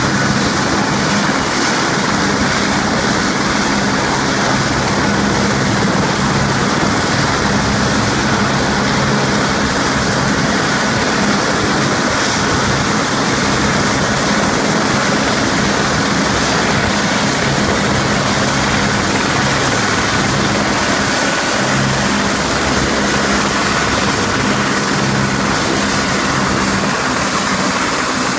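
Helicopter turbines and rotors running steadily: a Sikorsky S-76 lifting off and flying away, mixed with a nearby AS350 AStar single-engine helicopter idling with its main rotor turning. It is a loud, even din, with a high turbine whine over a low rotor beat.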